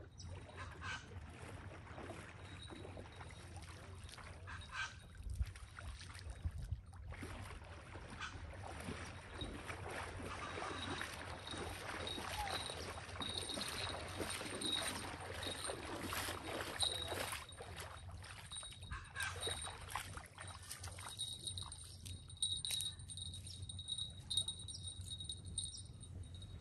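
Shallow lake water sloshing and splashing as someone wades through it, busiest midway through, over small waves lapping at the shore. A faint, thin, high tone comes and goes in the background.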